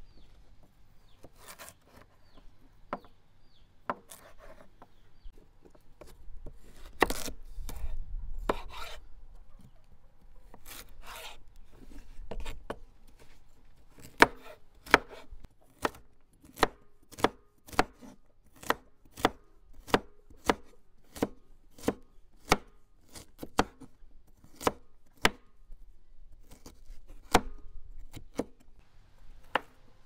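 Knife chopping on a cutting board: scattered knocks at first, then a steady run of sharp chops about two a second.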